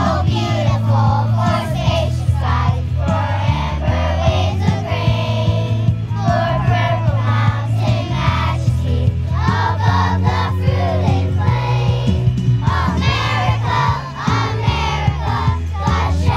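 A choir singing with instrumental accompaniment, a steady low part sounding under the voices.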